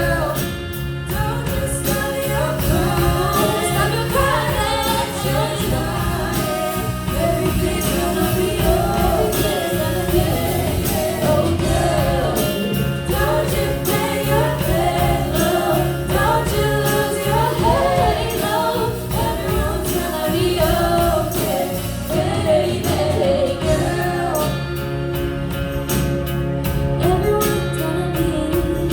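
A song sung by a vocalist over band accompaniment, with sustained chords, a bass line and a steady high percussive beat.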